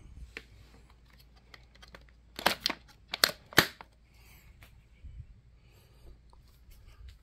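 Hands handling the plastic body of a Dolce Gusto Piccolo XS capsule coffee machine, which is still switched off: scattered light clicks and taps, with a cluster of four or five sharp clicks about two and a half to three and a half seconds in.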